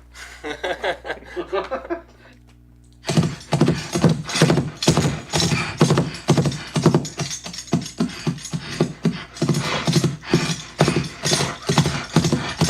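Playback of a Foley horse track: hoofbeats made with horse-hoof props in a quick, steady rhythm starting about three seconds in, layered with bridle jingle and vocal horse snorts.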